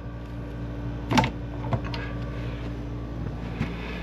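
A PEX crimping tool closing on a copper crimp ring: one sharp loud snap about a second in, then a couple of fainter clicks, over a steady low hum.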